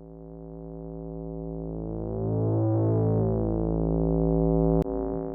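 Outro music: a sustained synthesizer chord that swells over the first few seconds and then holds, with a sharp click near the end.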